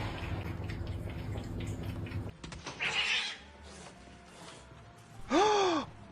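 A cat gives one loud meow near the end, rising then falling in pitch. Before it there is a steady low hum that cuts off about two seconds in, then a short burst of noise.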